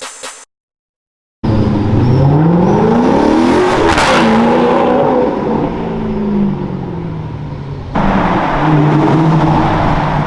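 A supercar engine accelerating through a road tunnel, its revs rising as it approaches. It passes loudly about four seconds in, then its pitch falls as it pulls away. About eight seconds in, the sound cuts abruptly to another car's engine at a steadier, lower pitch.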